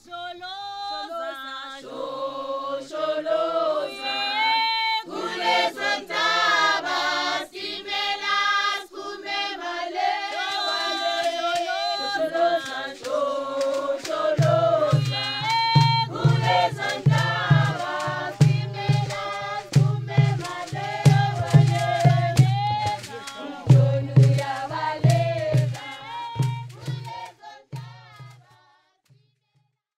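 Choir singing in harmony, joined about halfway through by a steady low drum beat; the music fades out near the end.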